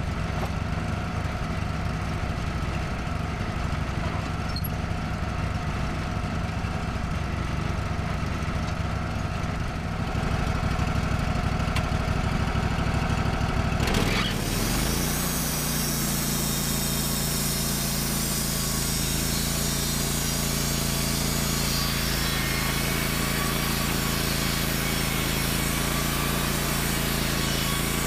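Wood-Mizer LT15GO sawmill's 25 HP Kohler engine idling, then about halfway through throttled up quickly to a steady high speed to drive the band blade. A steady sawing hiss joins the engine as the blade runs through the pine log.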